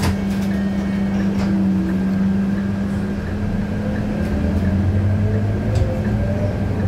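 Scania K230UB city bus's diesel engine running steadily, a low hum that grows stronger about halfway through, with a few light rattles.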